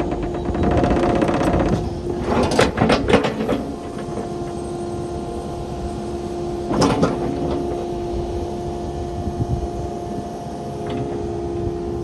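Kubota KX080 crawler excavator running, its engine and hydraulics giving a steady whine. A cluster of metallic clanks comes about two to three seconds in, and another clank near seven seconds.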